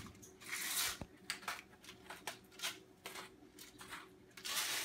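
Salt grinder being twisted in short bursts: gritty rasping grinds near the start and again near the end, with light clicks between them.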